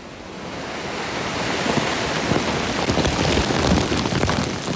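Aftermath of a close rock blast: a steady rushing noise of flying debris and dust, with scattered small impacts of falling stones, building up over the first couple of seconds.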